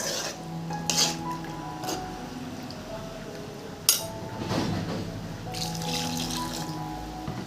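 Background music with a steady melody, over bursts of running, pouring water, as in rinsing or pouring in the kitchen. There is a sharp click about four seconds in.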